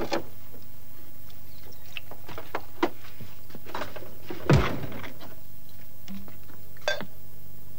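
Household fridge being opened and rummaged in: a few light clicks and knocks, with one louder thud a little past halfway, over a steady low hum and tape hiss.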